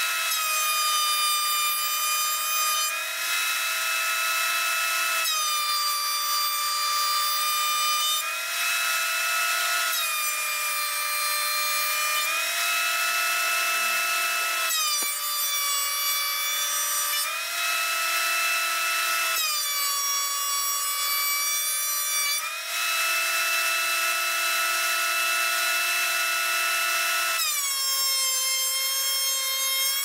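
Ryobi benchtop thickness planer running with a steady high motor whine. Six times a board of red oak flooring feeds through, and for two to three seconds each time the pitch sags a little and the sound grows denser as the cutterhead, under load, shaves the ridges off the board.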